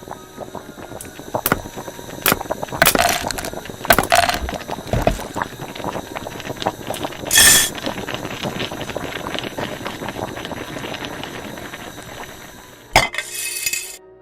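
Dense crackling and clicking with several sharp, louder clinks of hard objects. There is a brief hissing burst about halfway through and another near the end.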